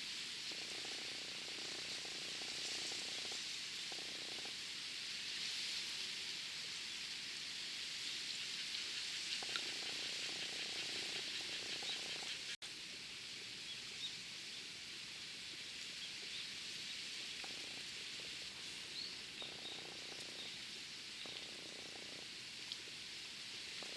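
Quiet waterside ambience: a steady high hiss with frogs calling in short spells of a second or so. The sound drops out for an instant about halfway through.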